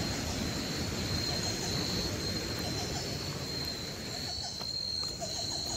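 Steady high-pitched insect trill, one unbroken tone, over a low rumbling noise that thins out a little after four seconds in.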